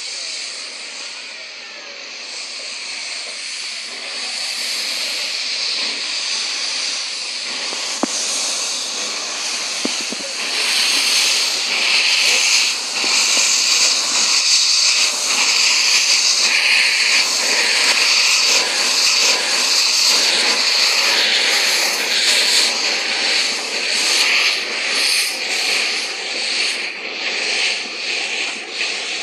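Steam locomotive venting steam: a loud, steady hiss that builds over the first ten seconds or so, then swells and falls in uneven pulses over the last several seconds.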